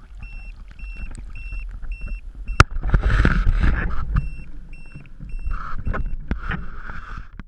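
An electronic beeper sounding short high beeps, about two and a half a second, which stop at a sharp click between two and three seconds in. After that comes rustling and knocking as hands handle the camera.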